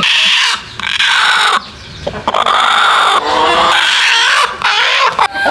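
Backyard hens squawking loudly, about four long, harsh calls with short breaks between them.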